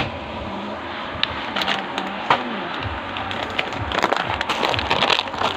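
Grocery-store background noise: a steady hiss of bustle with scattered clicks and rattles, thickest about four to five seconds in.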